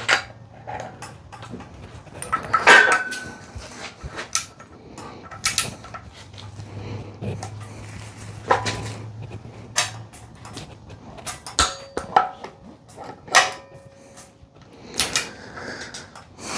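Hand tools clicking and clinking on metal as the cam gear bolts of a Mazda Miata engine are torqued with a torque wrench, with one louder metallic clank about three seconds in.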